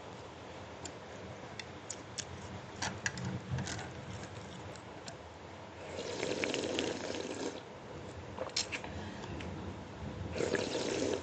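A person slurping noodles and soup in two wet bursts, one about six seconds in and one near the end, with small clicks and taps in between.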